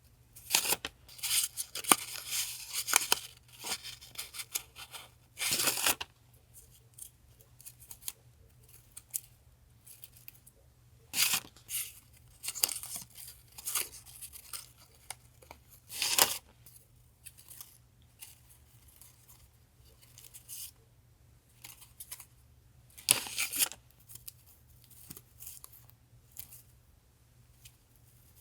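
Paper goods and their packaging being handled and opened by hand: irregular bursts of rustling and crinkling with quiet gaps between them. A faint steady refrigerator hum sits underneath.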